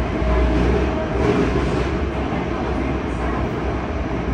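Yokohama Municipal Subway 3000R train running at speed, heard inside the passenger car: a steady low rumble of wheels and running gear on the rails.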